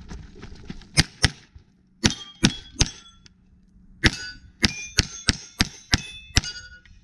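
A rapid string of about a dozen pistol shots at a rack of steel plates, most shots followed by the short ring of a struck steel plate. There is a pause of about a second between the first few shots and the rest.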